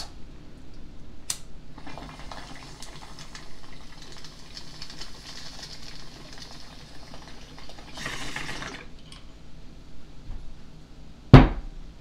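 Water bubbling in a glass bong as smoke is drawn through it for several seconds, with fine crackling ticks. A short, louder rush of air follows as the hit is finished, and a brief loud burst comes near the end.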